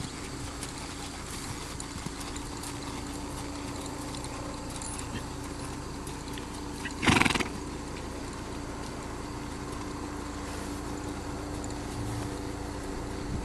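A Quarter Horse makes one short, loud sound about seven seconds in, over a faint steady hum.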